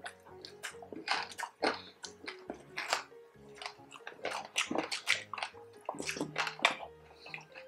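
Crunchy chewing of crispy fried pork belly with its crackling skin, irregular crisp crunches about two or three a second, over light cheerful background music.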